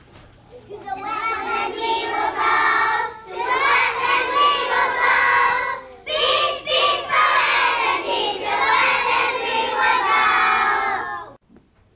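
A group of young children singing together in chorus, with brief breaks about three and six seconds in. The singing stops shortly before the end.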